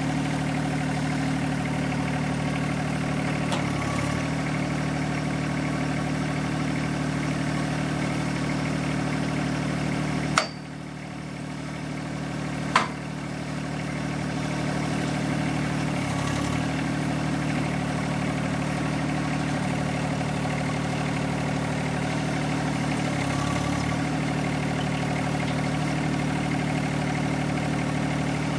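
Compact tractor's three-cylinder diesel idling steadily. About ten seconds in, the sound drops away after a sharp click and comes back after a second click two seconds later.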